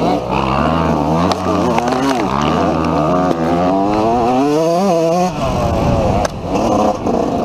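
Dirt bike engine revving up and down over and over, in short bursts of throttle; about five seconds in, the revs drop away.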